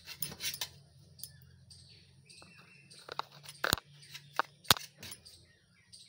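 Kitchen knife cutting slices of white bread on a stainless steel plate: light scraping and scattered clicks of the blade on the metal, with two sharp clinks about three and a half seconds in and a second later.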